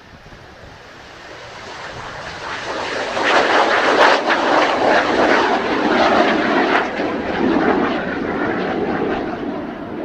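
Kawasaki T-4 jet trainer's twin turbofan engines at take-off power as it climbs away from a touch-and-go, growing loud to a peak about three to seven seconds in and then slowly fading as it flies off.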